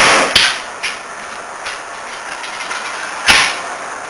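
CO2-powered airsoft M870 pump-action shotgun (Airsoft Surgeon Slugshot) firing: a loud shot at the start followed by a couple of sharp knocks, then a second shot about three seconds later.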